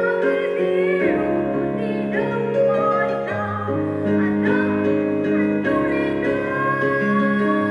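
Music: a song, with a sung melody over sustained instrumental accompaniment.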